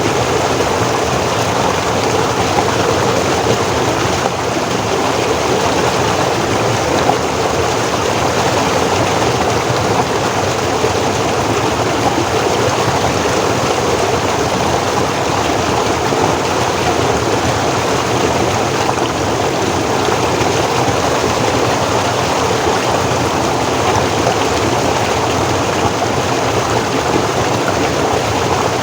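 Forest stream flowing over rocks, a steady rushing and gurgling of water at an even level.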